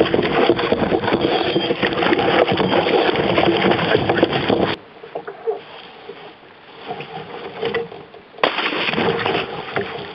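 Water splashing and knocking against a canoe as a wet dog is hauled aboard from the river. The noise cuts off sharply about halfway through, leaving quieter paddling sounds, and the splashing noise picks up again near the end.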